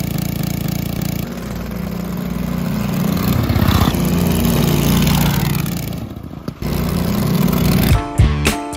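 Small horizontal-shaft petrol engine on a home-built motorized trike-scooter, running and revving as it is ridden, its pitch rising and falling. Music with plucked notes and drum hits comes in near the end.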